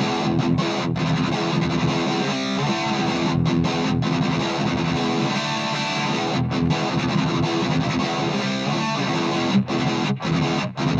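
Gibson SG Standard electric guitar played through a Marshall MG10CF practice combo amp on its overdrive channel, with the contour (tone) knob at about three o'clock: distorted chords strummed, with a few brief stops.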